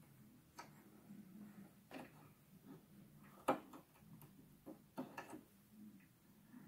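Faint, irregular clicks and taps of fingers handling the needle area of a Brother XM2701 sewing machine while threading it, with one sharper click about three and a half seconds in and a few more close together around five seconds.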